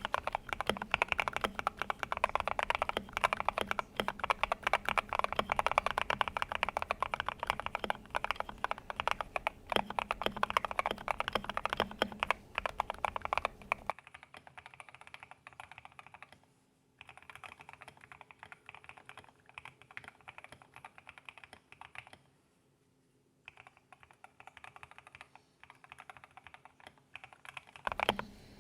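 Typing on a custom 60% mechanical keyboard with hand-lubed Gateron Yellow linear switches, an aluminium plate, a foam-filled case with tape and Holee mods, and XDA PBT keycaps: fast, continuous key clacking. About halfway the typing turns quieter and thinner, with two short pauses.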